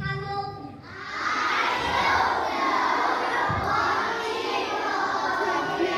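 A hall full of young schoolchildren shouting and cheering together, breaking out about a second in after a single child's voice.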